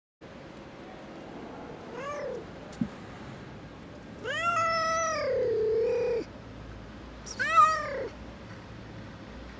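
Cat meowing three times: a short meow about two seconds in, a long drawn-out meow lasting about two seconds in the middle, and another short meow near the end. A soft click comes just before the long meow.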